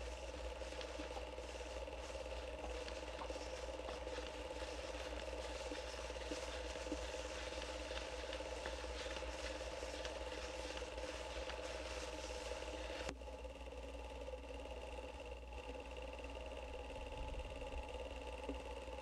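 Steady hum and hiss with a few held tones and no separate events; the level drops slightly and the tones shift about thirteen seconds in.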